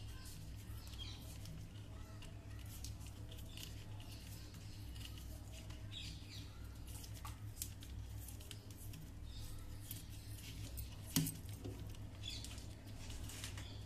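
Scattered small clicks and rustles of hands twisting and joining electrical wires on a monoblock pump motor's wiring, with one sharper click about eleven seconds in, over a steady low hum.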